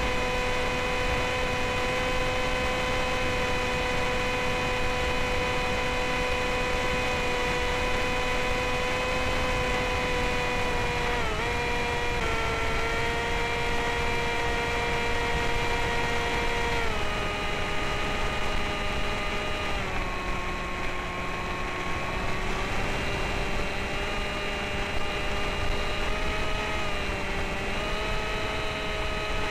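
Brushless electric motor and pusher propeller of a Sky Shadow S800 flying wing whining steadily over a rush of air noise on the onboard camera. The pitch drops in steps about 11, 17 and 20 seconds in as the motor slows, then creeps back up near the end.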